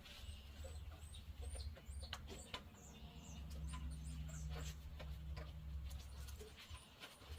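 Faint high chirps of small birds, repeated many times, over a steady low rumble with scattered light clicks.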